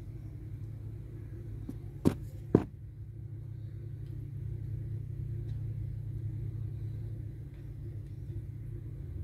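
Steady low purring from a mother cat nursing her kittens, close up. Two sharp clicks about two seconds in, half a second apart.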